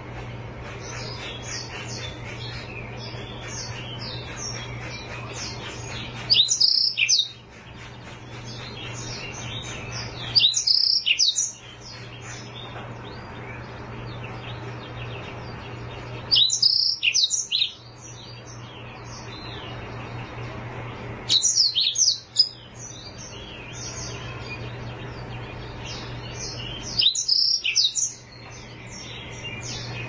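Black-throated canary (blackthroat, Serinus atrogularis) singing a continuous high, chirping song, broken about every five seconds by a loud burst of notes lasting about a second, five times in all.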